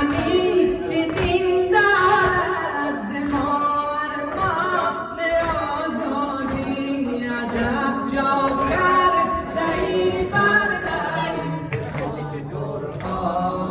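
A crowd of men singing a Muharram noha (Shia lament) together, unaccompanied, in Persian, with regular thumps of mourners beating their chests (matam) under the voices.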